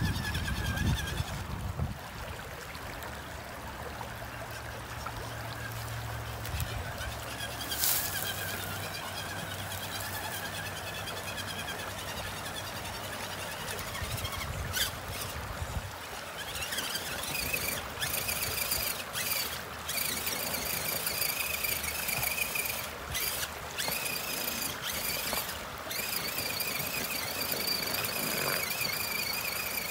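Redcat Everest-10 RC rock crawler's electric drive whining as it crawls through a rocky creek, the whine cutting out and coming back several times in the second half as the throttle is let off and applied. Creek water runs and splashes around the tyres underneath.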